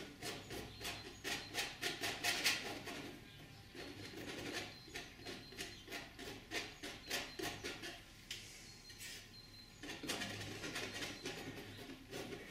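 Painting knife dabbing and dragging white oil paint on a stretched cotton canvas: soft, irregular scratchy taps, often two or three a second, turning to a denser scraping about ten seconds in.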